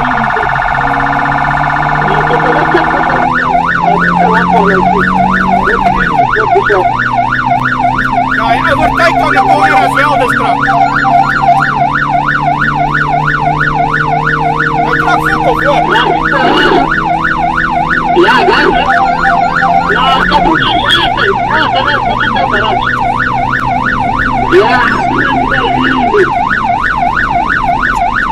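Emergency vehicle siren on a car being driven at speed, heard from inside the cabin: a very fast warble that switches about three seconds in to a fast yelp sweeping rapidly up and down. The engine drones steadily beneath it, its pitch shifting at about 6 and 20 seconds in.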